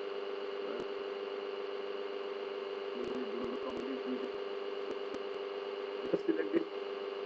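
Steady background hum and hiss with a few faint computer mouse clicks.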